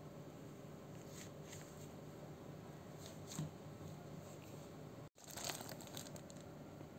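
Faint crinkling and rustling of a plastic shipping bag handled with latex-gloved hands: a few scattered crinkles, a brief break in the sound about five seconds in, then a denser run of crinkling.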